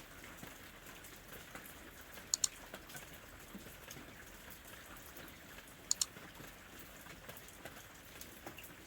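Rain falling as a faint, steady patter of drops. Twice, about two and a half and six seconds in, a pair of sharper, brighter drip taps stands out.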